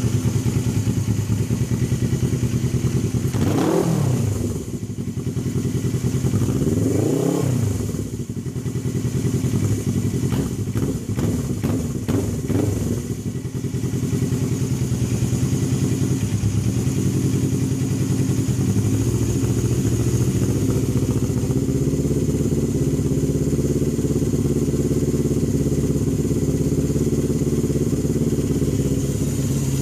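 1992 Suzuki GS500E's air-cooled parallel-twin engine running through a Vance and Hines exhaust, blipped up and back down twice in the first several seconds, then settling to a steady idle.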